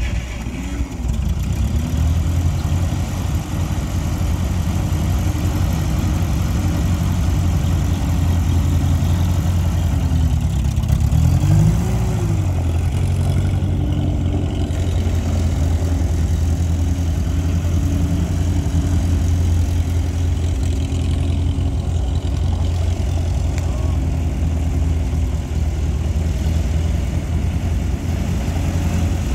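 1949 Ferguson tractor's four-cylinder engine running steadily as the tractor is driven, its revs rising and falling briefly about a second in and again around eleven to twelve seconds in.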